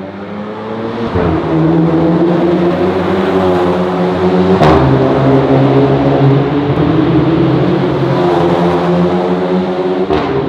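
Volkswagen Golf 8 GTI's turbocharged four-cylinder engine through an ARMYTRIX 200-cell sport-cat turbo-back valved exhaust, accelerating hard with the pitch climbing. There are two gear changes, one a little over a second in and one near the middle; the second comes with a sharp crack from the exhaust.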